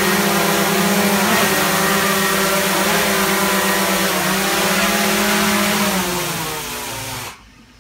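DJI Mavic 2 Pro quadcopter hovering, its four motors and propellers giving a steady whirring hum with small shifts in pitch. After it is caught by hand about six seconds in, the sound drops and the motors cut off abruptly near the end as it lands.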